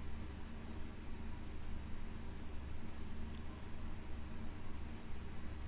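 A cricket chirring in a steady, high-pitched, rapid trill, over a faint low hum.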